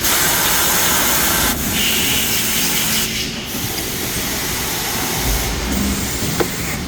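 CNC machine cutting a metal car part under a spray of water coolant: a loud, steady hiss that briefly dips a few times.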